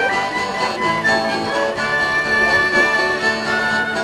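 Fiddle and acoustic guitar playing a traditional tune together, the fiddle carrying the melody in long bowed notes over strummed guitar.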